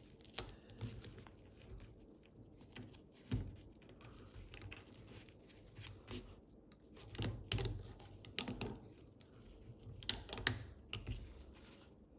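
Irregular small metallic clicks and scrapes as a circlip is worked around into its groove on a ratchet head.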